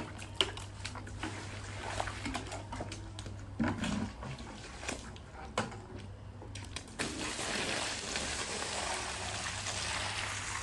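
Scattered light clicks and knocks, then from about seven seconds in a steady rush of water as a stream is poured onto a wool rug, splashing on its pile.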